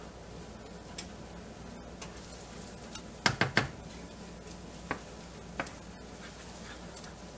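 Wooden spoon stirring diced carrots and onions dusted with flour in a nonstick frying pan, with light scraping and a quick run of three or four knocks of the spoon against the pan about three seconds in, then a couple of lighter taps.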